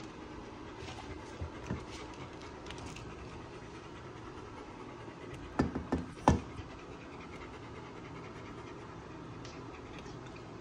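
Dog panting steadily, with three sharp knocks a little over halfway through.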